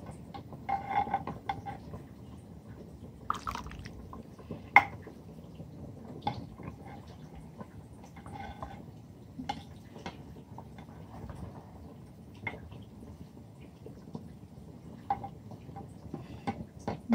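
Meat and broth being ladled into a clay bowl: soft dripping and splashing of liquid, with scattered clinks and knocks of the ladle against the bowl, the sharpest about five seconds in.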